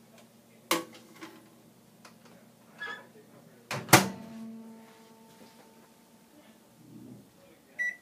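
Microwave oven being handled: a low hum through the first half, a click under a second in, a loud clunk with a brief metallic ring about four seconds in, and a short electronic beep at the very end.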